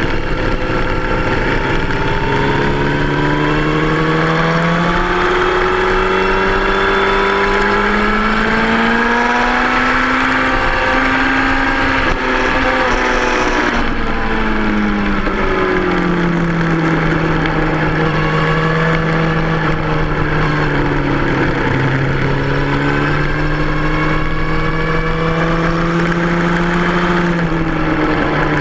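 2003 Yamaha R1's inline-four engine running hard on track. Its note climbs steadily for about ten seconds, drops away around thirteen seconds as the bike slows, then holds steady at a lower pitch.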